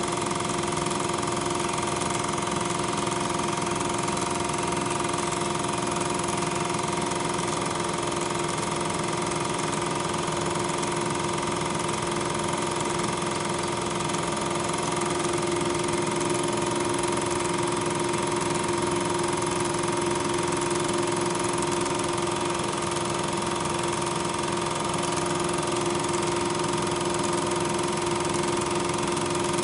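8mm film projector running during the film transfer: a steady mechanical hum with a few fixed tones over hiss, unchanging throughout. Regular 8mm film carries no sound, so the trains on screen are not heard.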